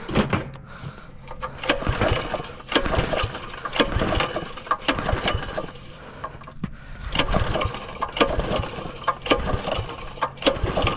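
Predator 212 single-cylinder engine being pull-started over and over with its recoil starter, cranking and rattling in several pulls a couple of seconds apart without ever firing: the kill switch is off and the choke is back.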